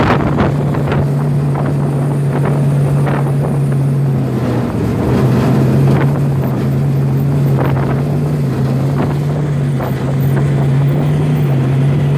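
Engine of an open-top NASCAR-style stretch limo running at a steady cruising speed, a low even drone that sags briefly about four and a half seconds in. Wind rushes over the microphone.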